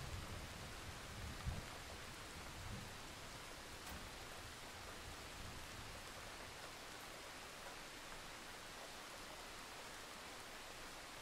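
A steady, even hiss, with a low rumble that fades out over the first two or three seconds and a brief thump about one and a half seconds in.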